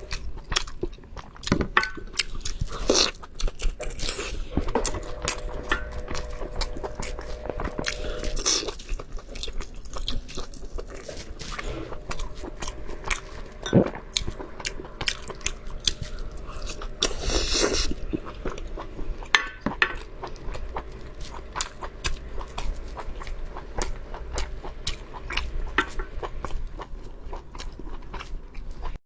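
Close-miked chewing and biting of food, many short wet clicks and snaps of the mouth, with one brief louder noise a little past halfway.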